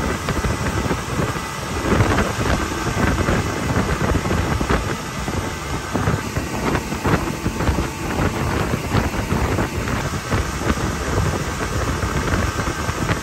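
Boat running across a river: heavy wind buffeting on the microphone and the hull knocking on the water, with a faint steady whine from the motor underneath.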